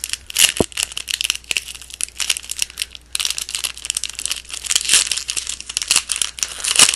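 A trading-card value pack's wrapper being crinkled and torn open by hand: dense crackling throughout, with a short pause about three seconds in.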